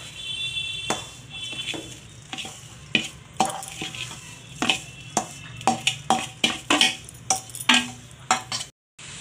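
Metal spatula scraping and knocking against a metal kadai while stirring grated coconut and sugar over the flame, in irregular strokes about one or two a second. The sound drops out briefly near the end.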